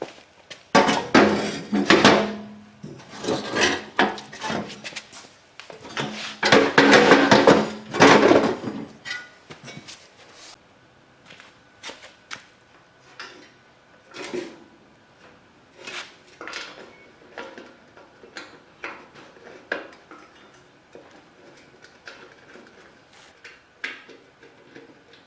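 Metal parts clanking and knocking as a snowblower auger is worked on, with two longer loud noisy stretches in the first third, then scattered lighter clinks and taps.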